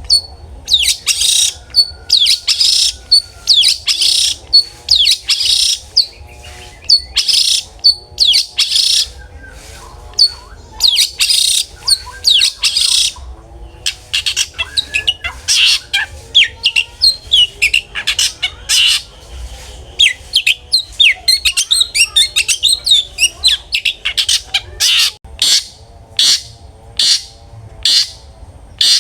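Long-tailed shrike (cendet) singing loudly without a break: a run of harsh, scratchy bursts and chattering notes that turn into quick, short clicks toward the end.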